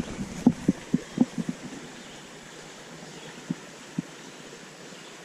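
Soft low thumps from handling a just-caught small brown trout: a quick run of them in the first second and a half, then two single thumps later, over a faint steady hiss.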